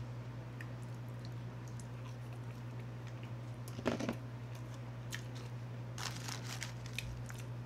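Close-miked eating: a person chewing and crunching cheese fries dipped in ranch, with small wet clicks and one sharp crunch about four seconds in, over a steady low hum.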